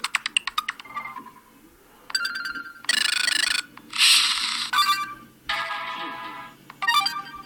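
Stock ringtones of a DEXP Ursus NS110 Android tablet played through its speaker one after another: several short snippets of different chimes, rapid pulsing tones and brighter noisier jingles, each cut off abruptly as the next one starts.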